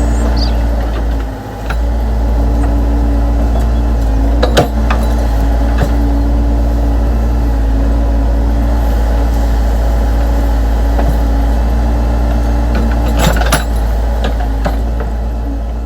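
RC construction machines, a scale excavator and bulldozer, running with a steady engine-like drone, with a few sharp clicks and knocks from the working models, one about four seconds in and a cluster near the end.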